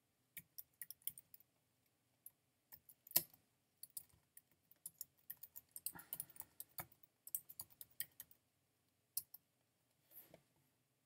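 Faint typing on a computer keyboard: a run of irregular keystroke clicks, with one louder key press about three seconds in, stopping about nine seconds in.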